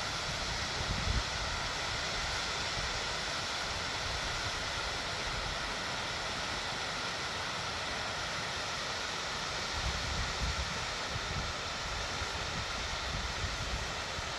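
Waterfall's rushing water, a steady even hiss. Wind buffets the microphone in low gusts about a second in and again through the last few seconds.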